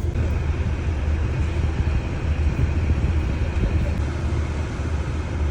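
A car engine running steadily, a low even rumble with no change in pace.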